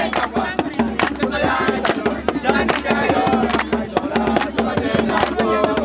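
Lively music: rapid, dense drum strokes with voices singing over them.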